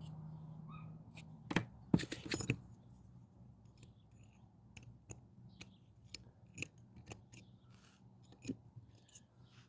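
Small metal tool clicking and scraping as it probes inside a disassembled part, with a few louder clicks about two seconds in and scattered light ticks after. A low steady hum stops about a second in.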